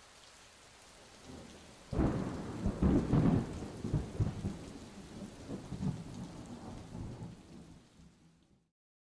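Steady rain falling, then a sudden clap of thunder about two seconds in that rumbles on in rolling swells and slowly fades away.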